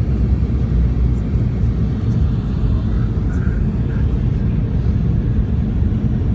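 Steady low rumble inside an airliner cabin during descent to landing: engine and airflow noise heard from a passenger seat by the window.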